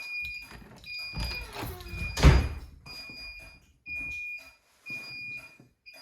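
An alarm sounder beeping during a carbon monoxide detector test: a high electronic tone about once a second, each beep about half a second long. About a second in, a door creaks and then shuts with a loud thud.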